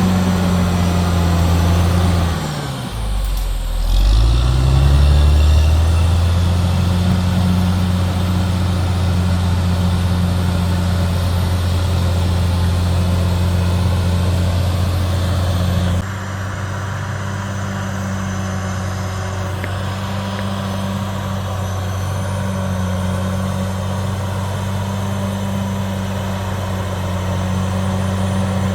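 Caterpillar D6R XL bulldozer's diesel engine running steadily under work. About three seconds in, its revs dip sharply and climb back. About halfway through, the sound changes abruptly and turns a little quieter, then holds steady.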